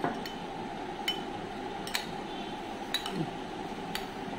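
Steel spoon clinking against a glass bowl while stirring saffron into milk: a few light clinks, roughly one a second.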